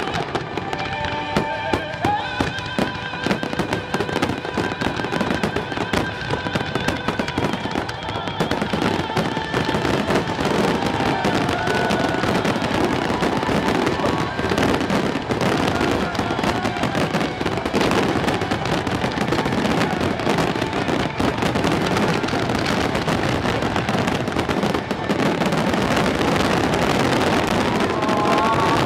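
Fireworks bursting in rapid succession, thickening into a dense crackling barrage. Orchestral music plays under the first several seconds, and crowd voices come up near the end.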